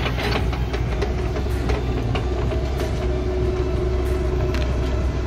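Heavy machine's engine running steadily during stump removal, a low hum with a held tone over it and scattered metallic knocks and rattles.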